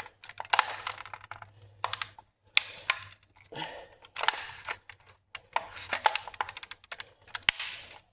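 Toy BMW X5 creaking and crackling as it is crushed under a person's bare foot: clusters of sharp clicks and cracks coming in several bursts.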